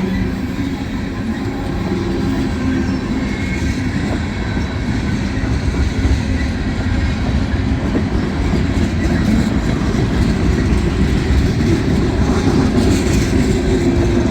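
Freight cars of a long freight train rolling past at about 20 to 25 miles an hour: a steady, loud rumble and rattle of steel wheels on the rails.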